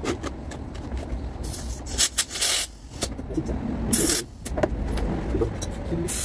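Compressed air hissing in several short bursts from an air-hose chuck, inflating the inner tube of a small cart tyre, with a few clicks and a steady low rumble underneath.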